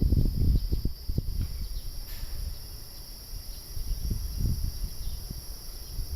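Cicadas buzzing in a steady, high, unbroken drone, under a louder, uneven low rumble.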